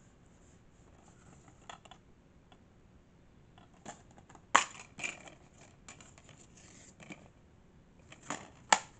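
Plastic DVD case being handled and turned over: scattered clicks and short rattly scrapes, with a sharp click about four and a half seconds in and another near the end.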